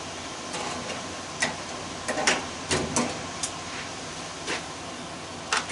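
Scattered light clicks and knocks as furnace parts and tools are handled, about eight in all, most of them in the middle, over a steady background hiss.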